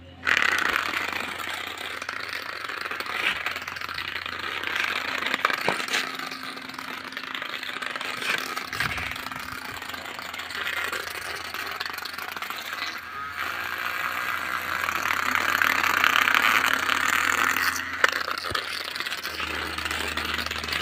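Small DC motor of a homemade matchbox toy tractor whirring as the toy drives across a concrete floor, its light cardboard body and little plastic wheels rattling. The noise swells for a few seconds toward the end.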